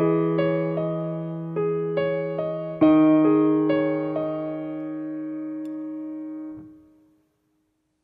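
Background music: a piano-like keyboard playing a short phrase of struck, sustained notes and chords, which fades out and ends about seven seconds in.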